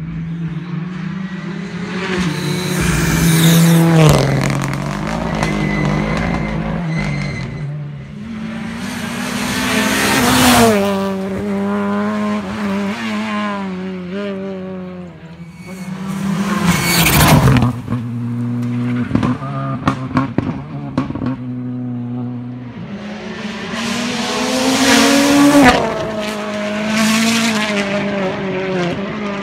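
Rally cars driven flat out on a closed asphalt stage, one after another: engines revving hard and shifting up and down. The sound swells to a loud peak about four times as cars approach and pass, with a few sharp cracks in between.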